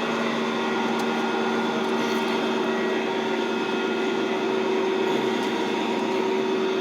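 Steady machine hum at a constant pitch, like an engine or motor running nearby, with a couple of faint clicks.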